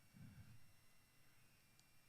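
Near silence: a pause between a preacher's sentences, with only faint room tone.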